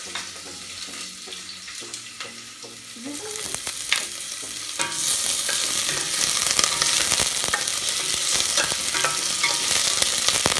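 Onion and ginger sautéing in hot oil in a pot, stirred with a utensil that clicks and scrapes against the pot. The sizzling grows much louder about halfway through.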